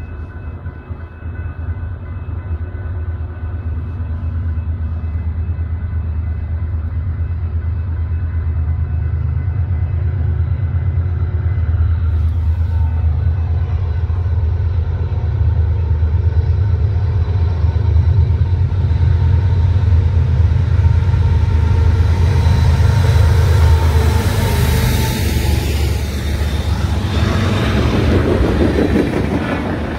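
BNSF freight train with diesel locomotives approaching: a deep engine rumble that grows louder over the first twenty seconds. Then, for the last several seconds, the rushing clatter of wheels on rail as the locomotives and freight cars pass close by.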